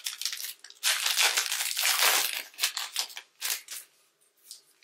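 Wrapper of a Panini Mosaic trading-card pack being torn open and crinkled by gloved hands: a dense crackling rustle for about three seconds that thins to a few soft crinkles near the end.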